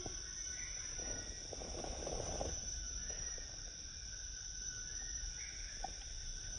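Insect chorus: a steady high-pitched chirring drone, with a few faint rustles and knocks.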